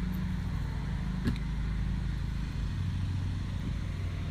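Steady low hum of a car's engine and cabin, with a single short click about a second in.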